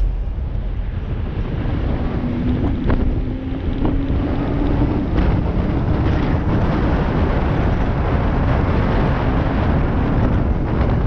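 Wind rushing over the microphone as a steady, loud noise with a low rumble. A faint low hum, likely traffic, comes through from about two to six seconds in.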